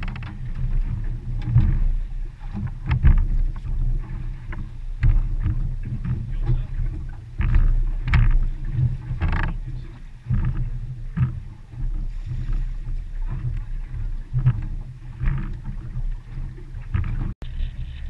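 Wind buffeting the microphone in irregular gusts, with choppy waves slapping and knocking against the hull of a small boat.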